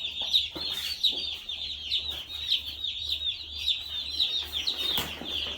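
A flock of young broiler chicks and turkey poults peeping continuously, many high, short, falling cheeps overlapping.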